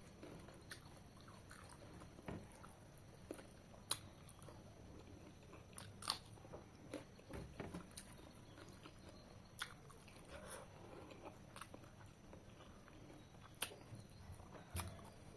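A person quietly chewing and eating a meal of chicken curry, with a few sharp clicks and small crunches scattered through.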